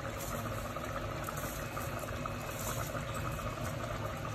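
Mutton stock and masala boiling steadily in a stainless steel pot as raw rice is poured in from a glass bowl.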